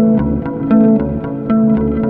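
Background music: plucked guitar notes over a bass line with a steady beat.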